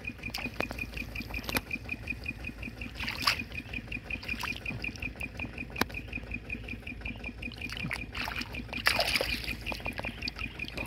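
Hands splashing and sloshing in shallow muddy water while a crab and snails are picked out, with a louder splash of water near the end. Behind it, a steady, rapid high-pitched chirping pulse repeats several times a second throughout.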